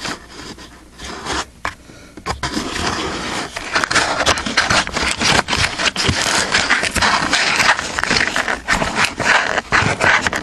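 Scraping and rustling of a cut-open cardboard case of firework shells being handled, with many small knocks; sparse at first, then continuous from about two seconds in.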